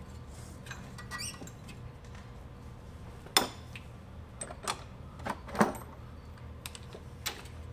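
Metal tool parts clinking and knocking as a wheel-bearing press tool's cups, spacer and threaded rod are fitted onto a front hub: a few sharp separate taps spread over several seconds, over a steady low hum.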